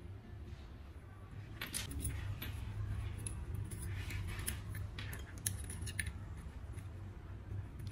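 Small sharp clicks and taps of handling as thin wire, a pencil and pliers are worked over a table, clustered in the middle of the stretch, over a steady low hum.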